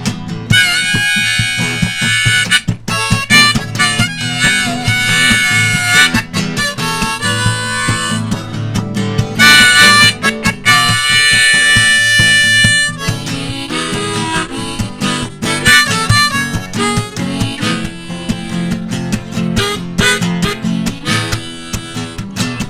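Harmonica solo over strummed acoustic guitar, an instrumental break in a country-blues song. The harmonica's long held notes are strongest in the first half, and the strumming carries on steadily underneath.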